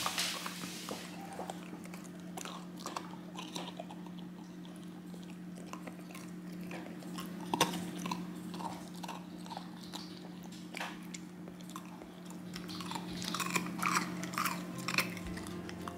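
Samoyed puppy chewing and crunching a frozen treat, with irregular crunches that come thicker near the end. A steady low hum runs underneath.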